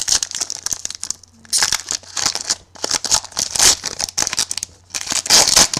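A 2011 Playoff Contenders football card pack's wrapper being torn open and crinkled by hand, in several bursts of crackling with short pauses between them.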